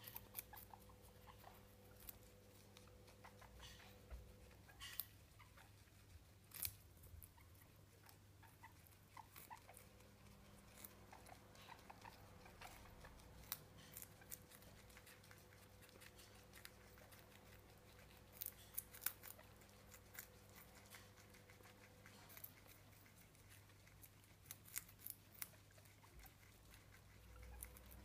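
Guinea pigs chewing raw carrot slices: faint, irregular crunching clicks that come in a few denser clusters, over a faint steady hum.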